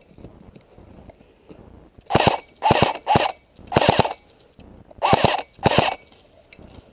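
Airsoft AK replica rifle firing six short bursts, the first about two seconds in and the rest spread over the next four seconds.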